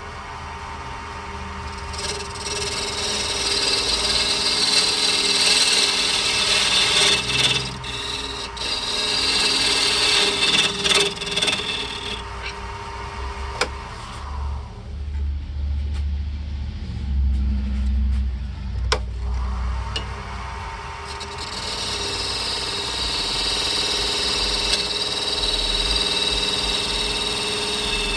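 Wood lathe spinning a desert ironwood burl ring blank while a carbide cutter scrapes out its bore, a steady hissing scrape as the inside diameter is widened to fit the ring core. The cutting stops for several seconds in the middle, leaving only a low hum, then starts again.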